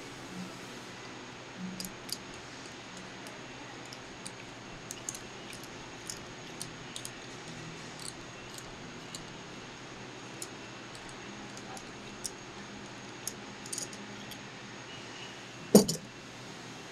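Small metallic clicks and ticks as a threaded valve tool is turned down into a top valve of a Giant GP5132 pump head. Near the end, one loud clunk as the metal tool is set down on the wooden workbench.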